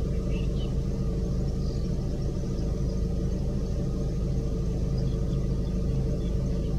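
Steady low rumble of an idling engine, with a few faint high chirps now and then.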